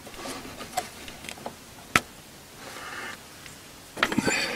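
Small clicks and taps of hands handling little parts at a car's distributor, with one sharp click about two seconds in and a louder clatter of several clicks near the end.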